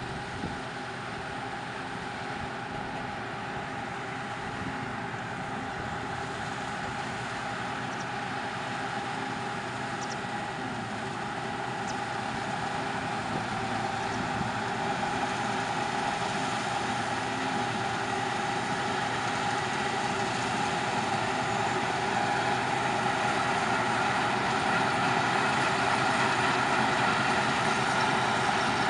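A Claas Lexion combine harvester running steadily as it cuts winter barley, its engine and threshing machinery humming. It grows steadily louder as it comes closer.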